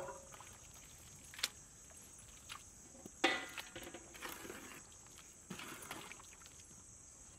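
A steel ladle stirring a large pot of boiling gravy, with a few scattered clicks, then louder scrapes and knocks against the pot about three seconds in and again near the end. Under it a steady, high insect buzz.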